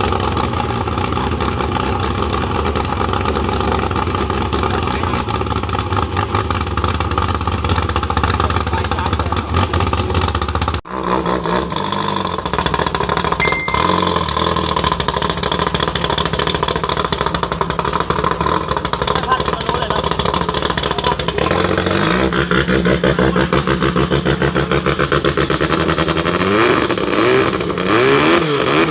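Racing boat engine running loud and steady, cutting off abruptly about eleven seconds in and picking up again, then revving up and down repeatedly near the end.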